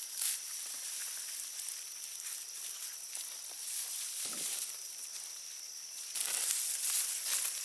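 Rustling and light clicks of garlic plants being pulled and handled in the garden, over a steady high-pitched whine and hiss. The rustling grows louder near the end.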